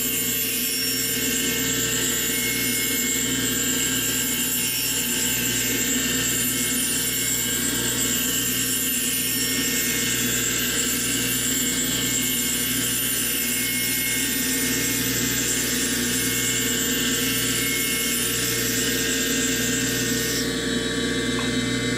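Grinding wheel and a drill running together, spinning a tungsten electrode against the wheel to grind it to a sharp point: a steady motor whine with grinding hiss. The higher hiss drops away near the end.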